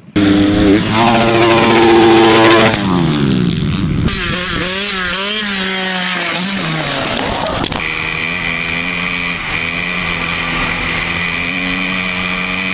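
Dirt bike engines revving across three quick cuts. The engine note climbs and then drops over the first few seconds, goes quickly up and down through the middle, and settles into a steady high note for the last few seconds.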